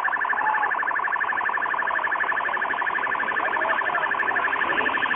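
A car alarm sounding: a rapid, steady two-pitch electronic warble, with faint voices under it.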